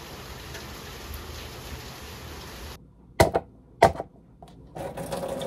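A steady hiss of room tone, then two sharp clicks a little over half a second apart, followed by the crinkling of a paper-and-foil instant-noodle cup lid being handled and peeled back.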